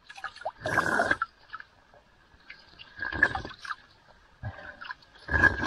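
Hand scooping water from a shallow stream to drink, with splashing three times about two seconds apart over the stream's faint steady trickle.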